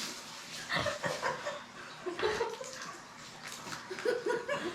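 Stifled laughter: a few short giggles and snickers over a faint rustling background.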